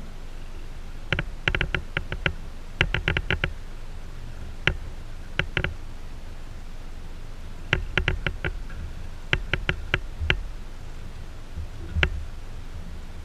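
Sharp light clicks or taps in irregular clusters of several a second, with pauses between the clusters, over a steady low rumble.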